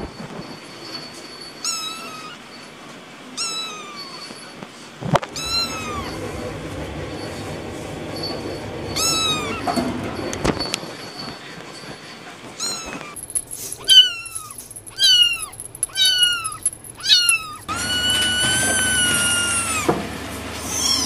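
Young kittens meowing: short, high mews that fall in pitch, one every second or two, then a quicker run of about five mews, and one long drawn-out mew near the end.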